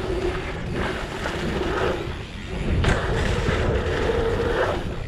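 Mountain bike rolling fast on a dirt trail: tyre noise and wind on the camera microphone, with a steady buzzing tone that drops out a little after two seconds in and comes back slightly higher. A sharp knock comes a little before three seconds in.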